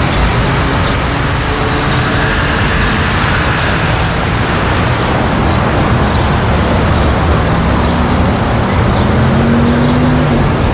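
Busy street traffic: a steady wash of cars and heavier vehicles such as buses passing, with engine rumble and tyre noise. A low engine tone rises slightly near the end.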